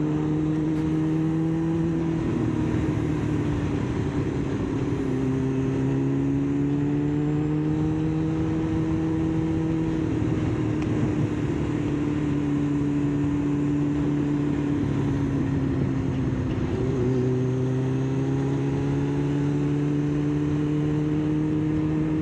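Kawasaki sportbike's inline-four engine heard from the rider's seat, running at road speed under rising and easing throttle. Its pitch climbs slowly and dips back a few times, over a steady rush of wind and road noise.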